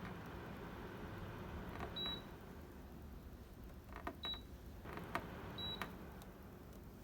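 Control panel of a KOIZUMI KAW-1606 window air conditioner beeping as its buttons are pressed: three short high beeps a second or two apart, each right after a click, over a steady low hum.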